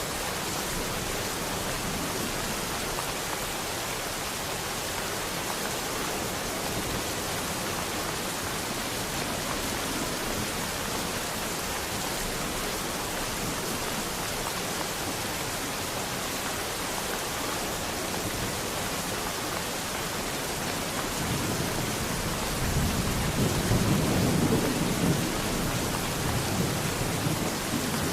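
Steady, even rainfall. About three quarters of the way in, a low rolling rumble of thunder builds and swells over a few seconds.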